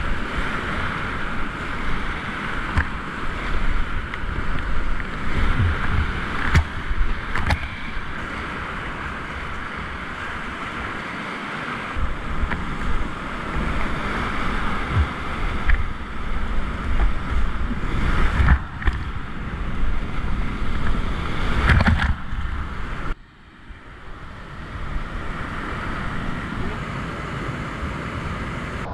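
Class IV whitewater rapids rushing loudly around a kayak, heard close up with water splashing on the microphone and several sharp knocks. A little past twenty seconds the sound drops away suddenly and comes back as a steadier rush of a big rapid.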